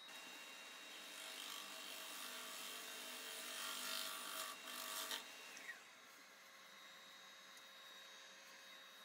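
Half-inch bowl gouge cutting the bottom of a spinning maple bowl blank on a wood lathe, a steady scraping hiss of the tool taking shavings. The cut stops about five seconds in, leaving a faint steady whine.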